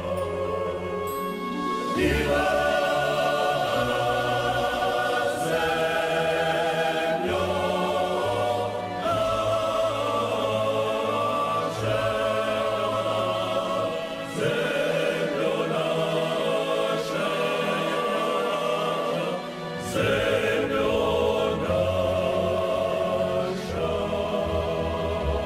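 Male klapa choir with orchestral accompaniment, holding slow sustained chords that change every few seconds, without clear sung words.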